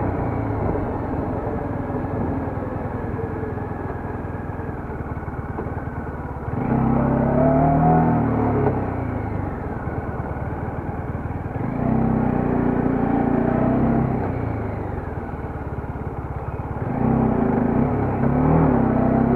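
Motorcycle engine running under the rider, its pitch rising and falling with the throttle, over steady wind and road noise. It gets abruptly louder about a third of the way in, again around twelve seconds, and near the end.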